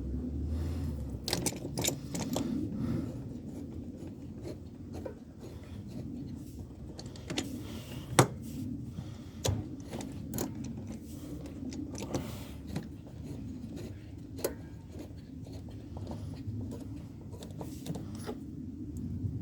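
Irregular light clicks and knocks from things being handled, with one sharper knock about eight seconds in, over a low steady hum.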